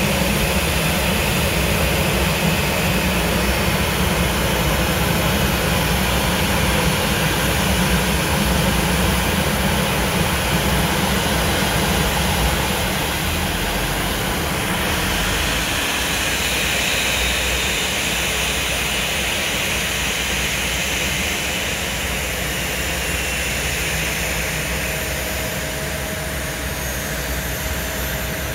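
Boeing 737 jet engines running at idle thrust as the airliner taxis in to park, a steady roar with a high whine. It eases a little about halfway through.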